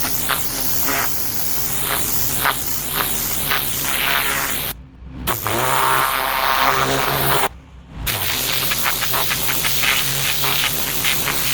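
Pressure washer jetting water onto paving: a steady spray hiss over the hum of the machine's motor. The sound cuts out briefly twice, about five seconds in and again about seven and a half seconds in.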